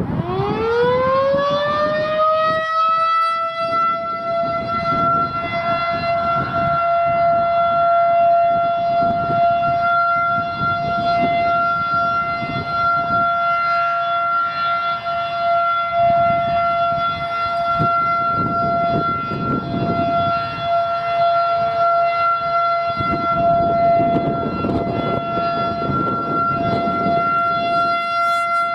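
Federal Signal 2001-SRN rotating electromechanical siren winding up: its tone climbs quickly over about two seconds, then holds as the steady Alert signal.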